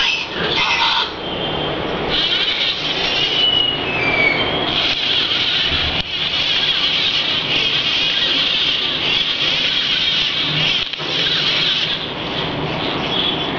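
LEGO Mindstorms NXT humanoid robot's servo motors and plastic gear trains whirring steadily as it walks, with a few short falling whines and brief pauses in the whir.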